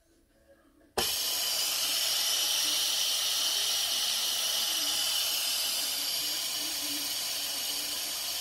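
A Moulinex Cookeo multicooker venting its steam valve at the end of pressure cooking: a loud, steady hiss of escaping steam that starts abruptly about a second in.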